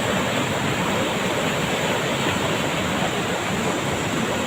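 Fast-flowing flash-flood water rushing steadily, a dense unbroken wash of noise.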